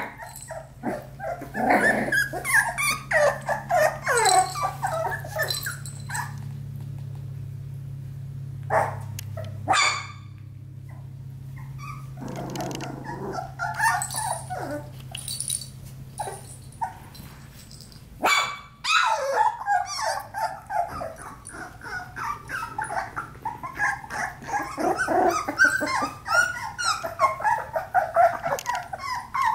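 A litter of four-week-old Australian Labradoodle puppies yipping and whimpering in many short, high, overlapping calls. The calls go quiet for a few seconds near the middle, then crowd together again through the second half.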